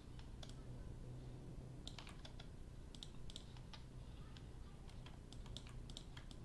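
Faint, irregular clicking of a computer keyboard and mouse as hotkeys are pressed and vertices are moved, over a low steady hum.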